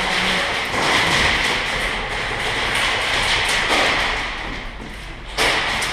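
A steady hiss of background noise, with one sharp thump about five and a half seconds in.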